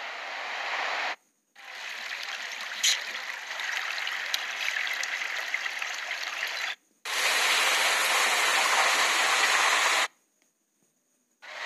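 Fast-flowing floodwater rushing, as a steady noisy wash, heard in three short clips broken by sudden silent cuts, with one brief sharp noise about three seconds in.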